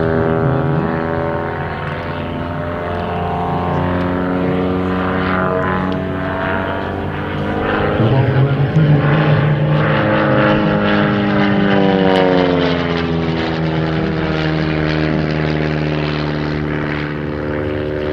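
Propeller and piston engine of a DR-107 One Design aerobatic monoplane flying overhead, one steady note whose pitch falls and rises as the aircraft changes speed and power through its manoeuvres. It is loudest around eight to twelve seconds in.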